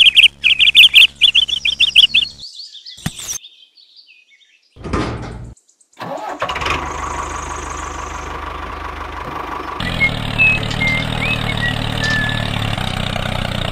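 Small tractor engine starting: a run of rapid loud pulses, a short lull, then steady running from about six seconds in. Birds chirp a few times about ten seconds in.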